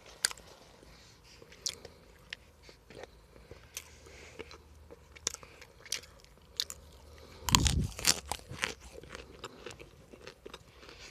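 Crunching and chewing of dry, crisp cornstarch chunks in the mouth: irregular sharp crackles, with one louder crunch about two-thirds of the way through.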